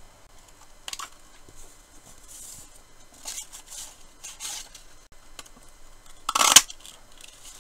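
Cardstock rustling and scraping as it is slid into a craft paper punch, then one short, loud crunch about six seconds in as the punch is pressed down and cuts a scalloped postage-label shape through the card.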